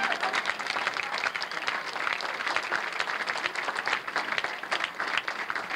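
Spectators applauding: many hands clapping in a dense, steady patter.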